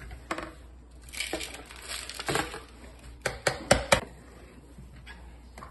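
Crumbly ground carrot, raisin, oat and nut mixture tipped and scraped with a spatula out of a blender jar into a plastic bowl, making a rustling scrape. Near the end come four quick sharp taps, about four a second.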